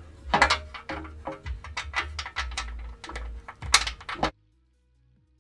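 Irregular clicks and light metallic rattles of bolts and a gasket being handled and pushed through the flange of a transmission oil pan. The sound cuts off suddenly about four seconds in, leaving faint music.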